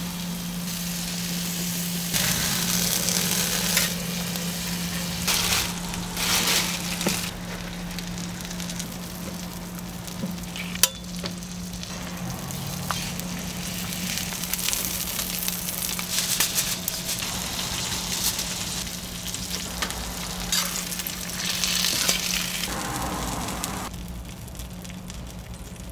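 Eggs and sausages sizzling on a flat-top griddle, with a utensil scraping and tapping the griddle now and then and a steady low hum underneath. The sizzling dies down near the end.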